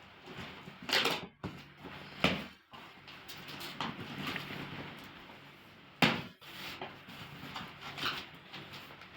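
Packaging being handled and rustled during unboxing: irregular scrapes and crinkles, with a sharp knock about six seconds in.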